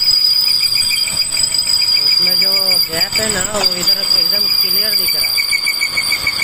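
Steady high-pitched mechanical whine with a rapid, even pulsing, with a voice heard briefly in the middle.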